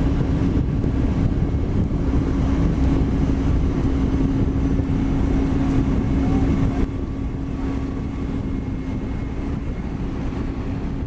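Heavy road-construction machine's diesel engine running steadily, with a constant low hum; slightly quieter from about seven seconds in.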